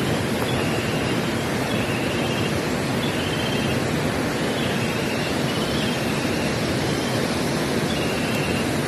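Wind rushing across the microphone, a steady hiss with an unsteady low rumble. Faint short high chirps come about once a second.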